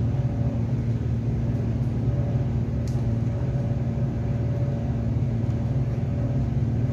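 Steady low mechanical hum with a constant drone, unchanging throughout, and a faint tick about three seconds in.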